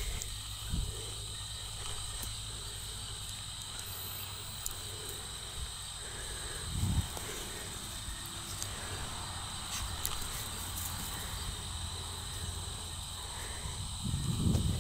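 Insects chirring outdoors: a steady, high, unbroken drone, over a low rumble of wind on the microphone. A few dull thumps break through, the loudest about seven seconds in and near the end.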